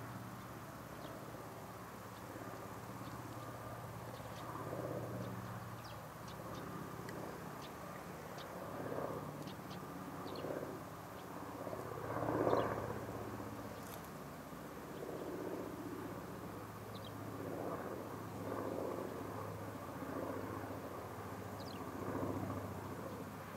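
Propeller drone of a Junkers Ju 52 trimotor's three radial engines flying overhead: a steady low hum that swells and fades every second or two, loudest about halfway through.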